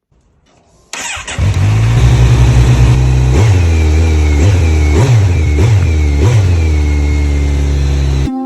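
A car engine starts and idles loudly, revved in about five short blips, then cuts off suddenly.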